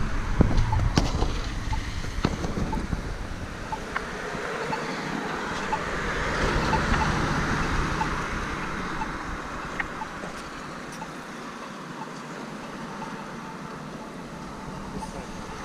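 Accessible pedestrian signal push button's locator tone ticking about once a second, with passing traffic; the tyre and engine noise of a vehicle swells and fades around the middle.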